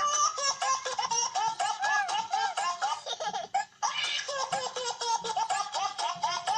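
Soundtrack of a TV commercial played back through a phone: babies laughing and giggling over music, with a short break just past halfway.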